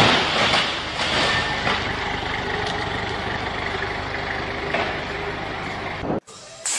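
A couple of knocks at the start, then a forklift engine running steadily; the sound cuts off abruptly near the end.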